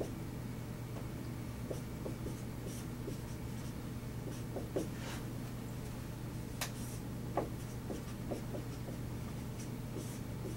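Dry-erase marker writing on a whiteboard: short, scattered scratchy strokes and light taps as symbols are written, over a steady low hum.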